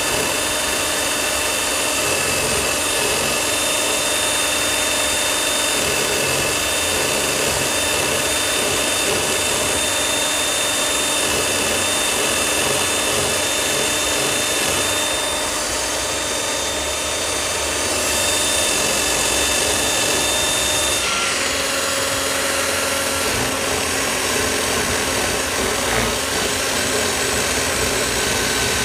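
Cordless drill running steadily, spinning a rubber-finger quail plucker while a scalded quail is held against the fingers to strip its feathers. The motor's whine holds one pitch, then changes pitch about two-thirds of the way through.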